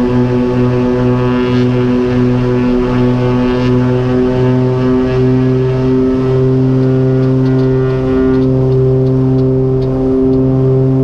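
The twin Continental 520 piston engines of a Cessna 414 Chancellor running at power, a steady drone with a pulsing beat between the two engines. The beat slows as their speeds draw closer together, and some of the hiss falls away about eight seconds in.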